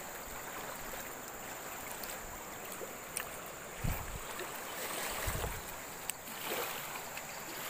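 Shallow river water rushing steadily over a rippled riverbed, with a couple of brief low thumps about four and five seconds in.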